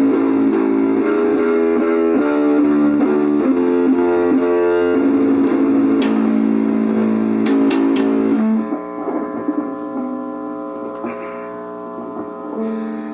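Guitar music: a melodic passage of changing notes that ends about two-thirds through on a held chord, which rings on and slowly fades.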